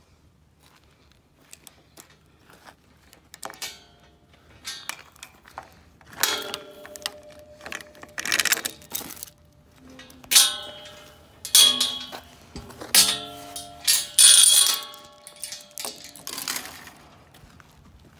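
Metal pipe gate clanking and rattling as it is handled, a dozen or so sharp knocks, several of them ringing on briefly, mostly in the second half.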